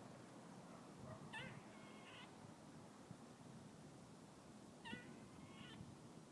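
Squirrel calling faintly: two short calls a few seconds apart, each a wavering high note followed by a brief second note.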